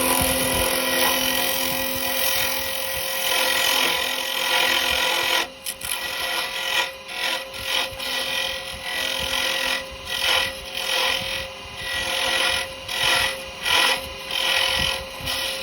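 Wood lathe running with a steady motor hum while a carbide chisel cuts the spinning yew. The first five seconds are one continuous hissing cut, then it turns into a string of short cuts.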